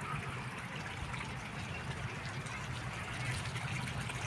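Irrigation water flowing and trickling along an earthen field channel, over a steady low hum.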